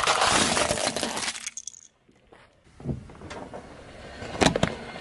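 A plastic toy crane truck cracking and crunching under a car tyre, a dense run of snapping plastic that stops about a second and a half in. After a moment of near silence, a few sharp cracks come near the end.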